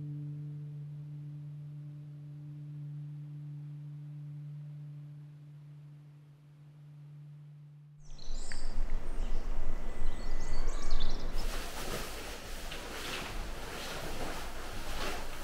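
A held music chord fading away over the first half. About eight seconds in it gives way abruptly to a dining room's background din, with scattered irregular clatter.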